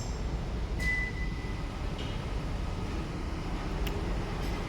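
A car's engine idling steadily after an automatic remote start. About a second in, the car's factory buzzer gives one beep of just under a second: part of its confirmation beeps during the remote-start module's matching.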